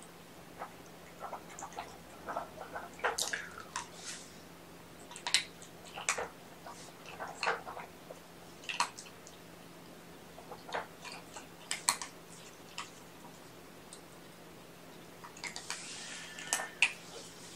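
Kitten eating from a food bowl: faint, irregular chewing clicks and smacks.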